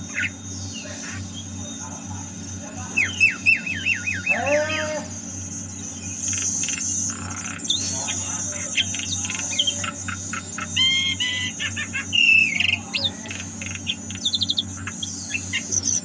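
Javan myna (jalak kebo) calling in full, busy song: a varied string of whistles, squawks and chattering notes, including a fast run of repeated notes about three seconds in and falling whistled glides just after. A steady low hum runs underneath.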